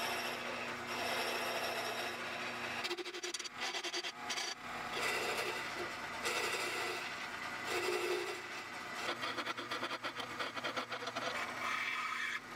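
Wood lathe turning a wooden finial while a hand-held steel turning tool cuts and scrapes it: a rasping scrape of steel on spinning wood in several passes with short pauses between them. The lathe's motor hums steadily underneath.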